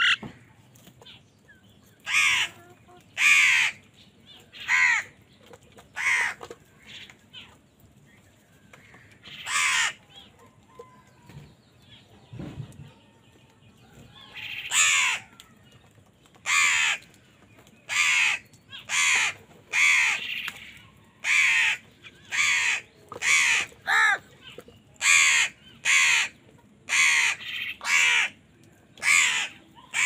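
A flock of house crows cawing. Harsh caws come every second or two at first, pause for a few seconds, then follow about once a second from roughly halfway through.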